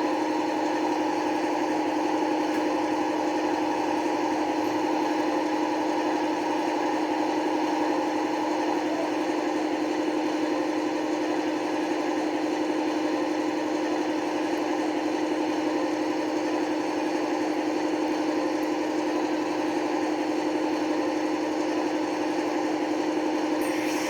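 Model locomotive's sound decoder playing a Class 55 Deltic's Napier Deltic engines idling, a steady drone from the model's small speaker. A higher whine within it fades out about nine seconds in.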